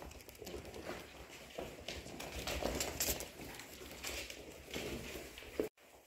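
Polish Hunting Dog puppies scuffling at play on a hard floor: a patter of claws and paws, with cloth rustling as they tug at a towel and rope toy.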